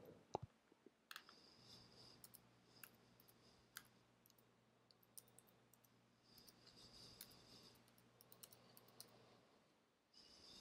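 Faint, scattered clicks of computer keyboard keys being typed on, over a low hum.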